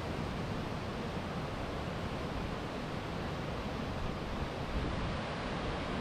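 Steady rush of flowing water, an even hiss and rumble with no change in level.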